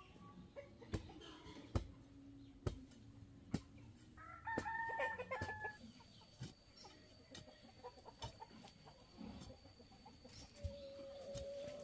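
A rooster crowing once, about four seconds in, among chickens clucking. Sharp knocks sound about once a second during the first few seconds.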